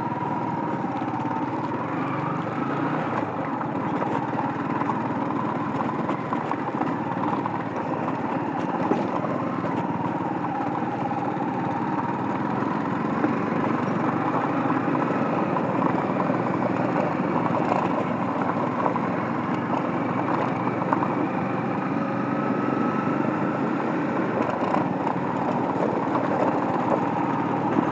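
Yamaha MT-15's single-cylinder engine running steadily at low speed in low gear over a rough dirt track, its pitch wavering a little with the throttle.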